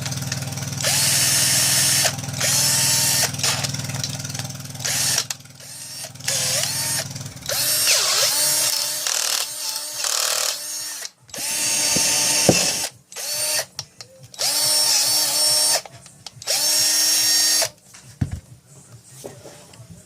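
Cordless drill/driver motor run in about ten short trigger pulls, each lasting about a second and whining up to speed before stopping.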